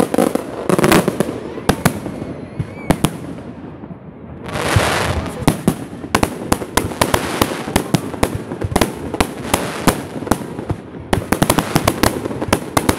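Fireworks display: aerial shells bursting in a string of sharp bangs, with a rushing hiss about five seconds in, then a dense run of crackling reports that comes faster near the end.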